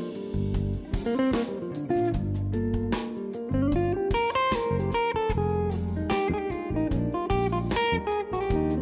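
Background music: a guitar-led song, with plucked guitar over a bass line and a steady beat.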